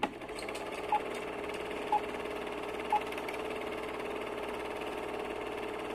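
Film-leader countdown sound effect: three short beeps about a second apart over a steady film-projector whirr.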